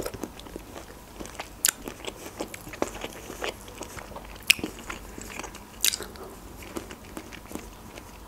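Close-up chewing of fresh pineapple chunks, with sharp mouth clicks and smacks now and then. The loudest click comes about four and a half seconds in.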